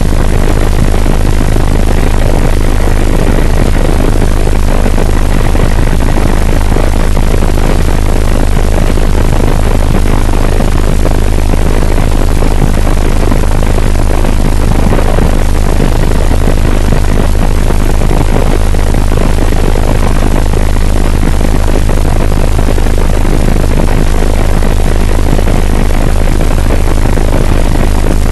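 Helicopter in flight heard from inside the cabin: a loud, steady drone of rotor and engine with a strong low hum and a faint high whine, unchanging throughout.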